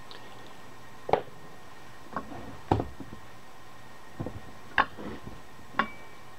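Small steel parts (nuts, bolts and small metal pieces) being picked up and set down on a workbench: about six sharp clicks and knocks, the last one ringing briefly, over a faint steady hum.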